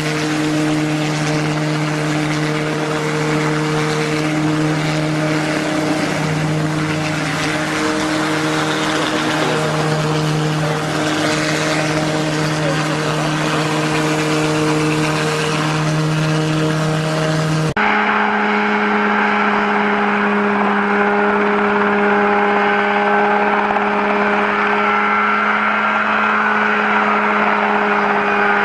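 Ultralight helicopter's small piston engine running at a steady speed. About two-thirds of the way through, it cuts abruptly to a higher, steady engine note.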